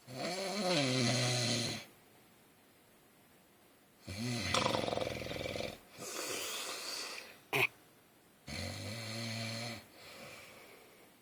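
A man snoring heavily in his sleep: about four long snores a few seconds apart, each a low buzz, with one sharp click about seven and a half seconds in.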